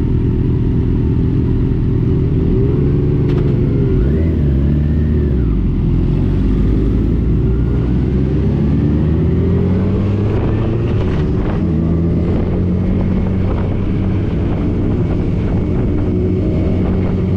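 Motorcycle engine running under way, its pitch dipping and rising a few seconds in, then climbing steadily as it accelerates.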